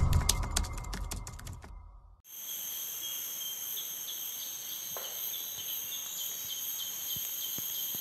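A channel-intro sound effect crackles and fades out, cutting off about two seconds in. Then a steady, high-pitched chorus of forest insects drones on, with a faint chirp repeating a few times a second.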